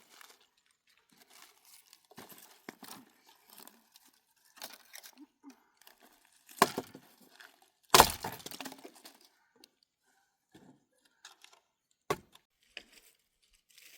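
Rustling and crinkling handling noises, with two sharp knocks a little past the middle (the second the loudest) and a single click near the end.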